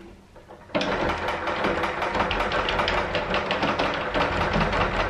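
Old wooden panel door rattling in its frame, shaken at its handle: a rapid, prolonged clatter of small knocks with a low rumble, starting suddenly about a second in.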